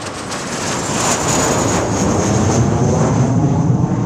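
Jet aircraft engine noise: a loud, steady rush with a high whine that slowly drops in pitch, and a deep rumble that grows in the second half.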